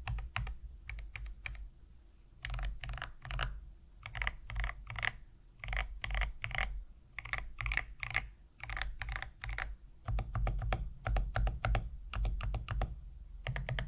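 Typing on an Iron165 mechanical keyboard fitted with aluminum keycaps: quick runs of keystrokes with a short pause about two seconds in.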